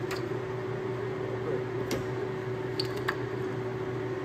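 Steady machine hum with one constant tone, consistent with the LeBlond Regal lathe running. A few light metallic clicks sound from the tailstock clamp lever as it is worked.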